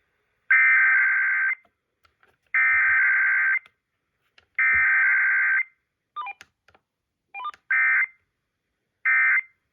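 EAS digital SAME header: three one-second bursts of data tones, about a second apart. After a few faint scraps come two short bursts of the end-of-message code. This is a Required Weekly Test sent as header and end-of-message only, with no attention tone or voice.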